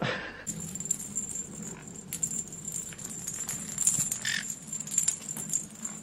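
A small bell inside a holed plastic toy ball jingling and rattling as a conure pushes and rolls it across carpet, a steady high ring with scattered small clicks.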